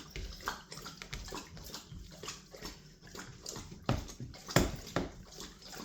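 Hands rubbing seasoning into raw boneless, skinless chicken thighs: irregular wet handling and slapping of the meat, with a few louder slaps about four to five seconds in.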